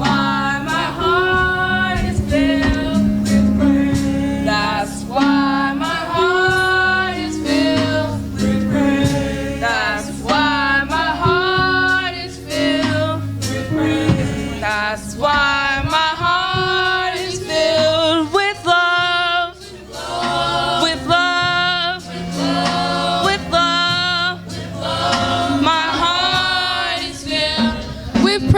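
Youth choir singing a gospel song with instrumental accompaniment: sung voices with vibrato over sustained low notes.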